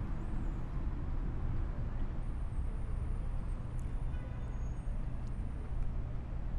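Steady outdoor background noise: a low rumble like distant traffic, with no single event standing out.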